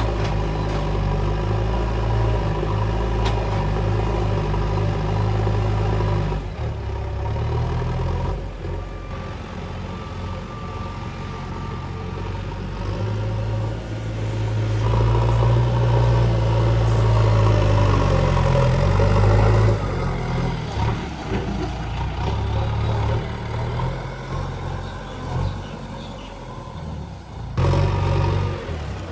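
Diesel engine of a JCB 3DX backhoe loader working, its note rising and falling as it is revved while loading mud, loudest for several seconds about midway. The sound changes abruptly near the end.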